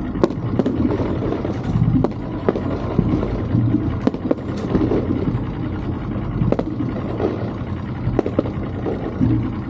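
Outboard motor running at idle with a steady low rumble, under irregular sharp bangs and crackles from distant fireworks bursts.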